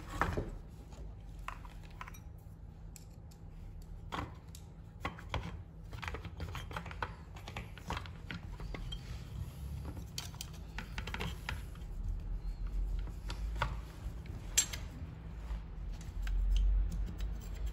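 Scattered light metallic clicks and taps as the small exhaust parts of a two-stroke brushcutter are handled and fitted, irregular and a few seconds apart, over a low steady hum.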